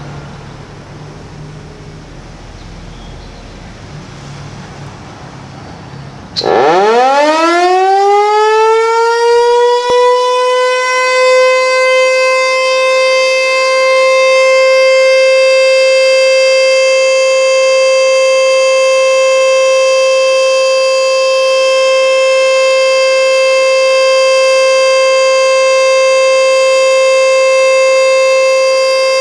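ASC Tempest T-121 omnidirectional mechanical outdoor warning siren winding up sharply about six seconds in, its pitch rising fast, then holding one steady tone: the alert signal of a monthly siren test.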